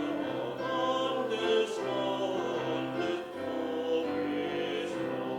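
Choir singing, with slow, sustained chords changing about once a second.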